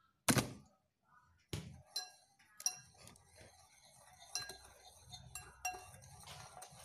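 A metal hand-mixer beater stirring dry flour in a glass bowl, clinking lightly and irregularly against the glass. A sharp knock comes about a quarter second in, and another at about a second and a half.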